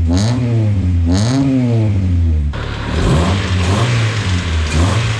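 Four-cylinder car engine breathing through aftermarket 4-2-1 headers, a Spoon-replica muffler and a resonator, revved in two quick blips that rise and fall in pitch. From about halfway it runs at a rougher, steadier note.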